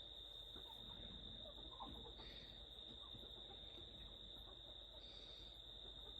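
Near silence: a faint, steady high-pitched cricket chorus, with a few soft rustles.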